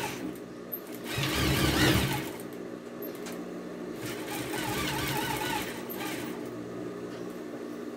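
Sewing machine stitching a seam along the bottom edge of a fabric dish towel. It runs loudest for about the first two seconds, then keeps stitching more quietly and steadily.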